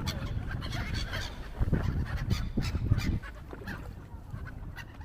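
Ducks and geese calling and squabbling in short, quick honks and quacks while being fed bread. Wind rumbles on the microphone and eases about three seconds in.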